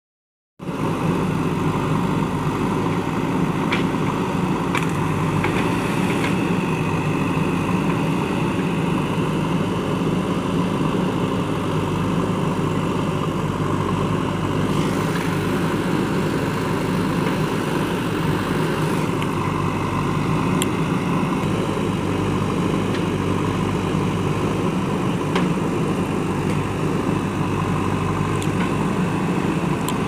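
JCB 3DX backhoe loader's diesel engine running steadily as the machine works in deep mud, with a few short clanks.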